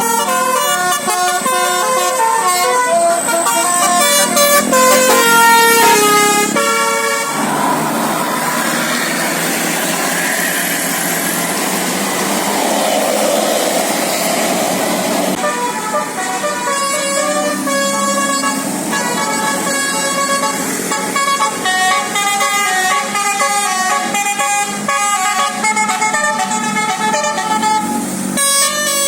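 A multi-tone 'basuri' telolet horn on an Indonesian bus plays a tune of quick stepped notes. About seven seconds in the notes give way to a rushing noise for several seconds, and then the horn starts a longer tune that runs until near the end.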